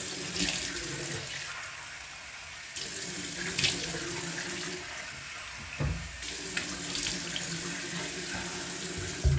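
Bathroom sink tap running steadily, with water splashing as it is scooped onto the face by hand. The flow stops at the very end.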